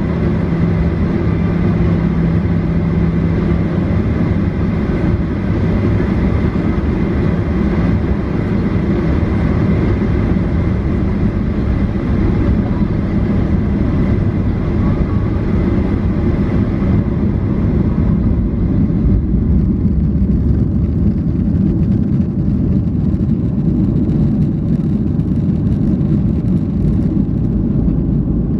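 Boeing 737-800's CFM56-7B turbofan engines at takeoff thrust, heard from inside the cabin over the wing during the takeoff roll: a loud, steady rushing noise, deepest in the low end, with a hum that fades out a few seconds in.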